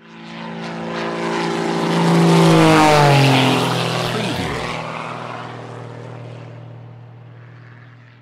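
An engine-driven craft passing by. Its sound builds to a peak about three seconds in, drops in pitch as it goes past, then fades away.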